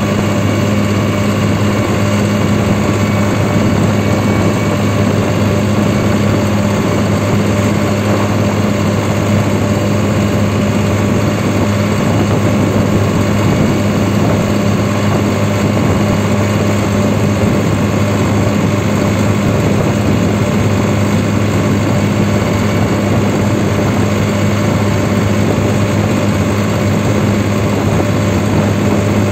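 New Holland 3630 Super Plus tractor's diesel engine running steadily under a constant throttle while driving on the road, a loud, even low drone heard from the driver's seat.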